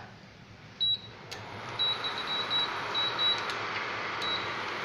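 Hot frying oil sizzling in a steel pan: a steady hiss that swells about a second and a half in, with a few sharp clicks and a faint high tone that comes and goes.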